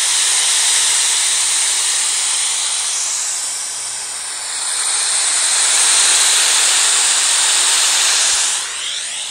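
White noise hissing from a smartphone speaker, picked up by a HyperX QuadCast USB condenser microphone set to its stereo pickup pattern. The hiss dips about four seconds in, swells again as the phone is moved around the microphone, and eases off near the end.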